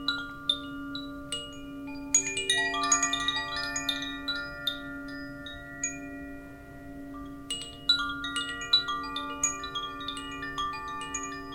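Wind chimes ringing: clusters of bright struck tones that overlap and ring on, thickest about two seconds in and again near eight seconds, over a steady low tone.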